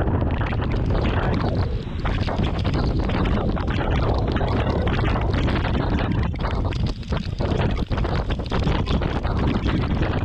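Strong thunderstorm winds buffeting the microphone: a loud, gusty rushing noise that dips briefly a couple of times.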